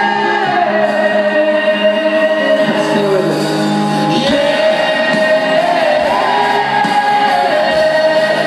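Pop-rock band playing live, a male lead singer holding long sung notes over the band.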